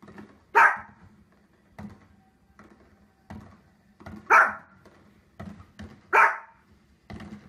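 A small fluffy dog barking sharply three times, with fainter short knocks in between.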